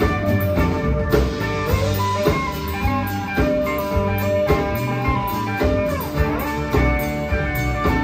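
Country band playing an instrumental passage: fiddle and electric guitar lines with sliding, bending notes over a strummed acoustic guitar and a steady drum beat.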